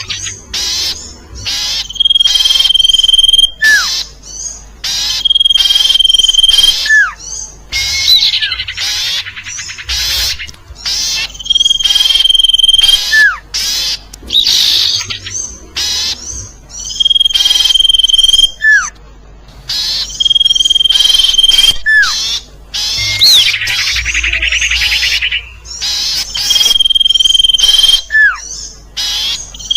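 Bird-lure recording of the sirtu bird call: a steady, high, whistled note about a second and a half long, repeated every few seconds. Between the whistles come short falling notes and loud bursts of chattering calls.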